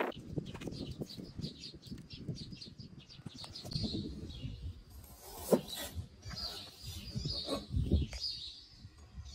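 Small birds chirping in quick repeated notes, with about three knocks of a chef's knife chopping through potato onto a plastic cutting board in the second half, the first of them the loudest.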